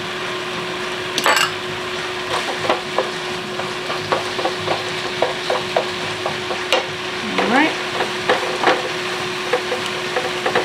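Ground meat and meat-substitute crumbles frying in two nonstick skillets with a steady sizzle. From about a second in, wooden spatulas scrape and tap the pans in many quick, irregular stirring strokes.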